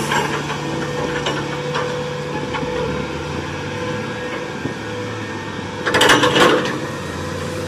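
Crawler crane working as a dragline, its diesel engine and winches running steadily, with a louder burst of clanking and rattling about six seconds in as the bucket and its chains swing.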